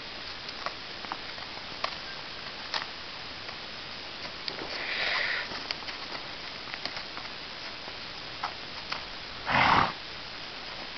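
Horse snorting: two breathy blows through the nostrils, a softer, longer one about five seconds in and a short, louder one near the end, over a faint hiss with a few small clicks.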